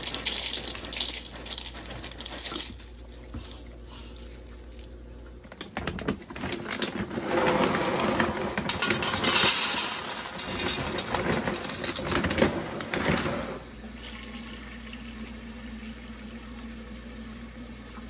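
Dry cereal rattling as it is poured from a box into a bowl, then dry dog kibble pouring from a bag into a steel dog bowl with a long loud clatter of pieces in the middle. Near the end a kitchen faucet runs water into a stainless steel bowl.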